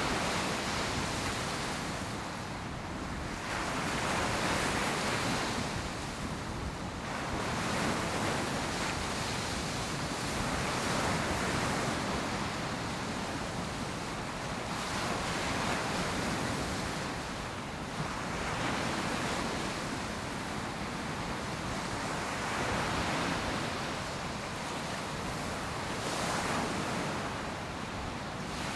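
Ocean surf breaking on a sandy beach, a steady wash of noise that swells and eases every few seconds as waves roll in, with a little wind on the microphone.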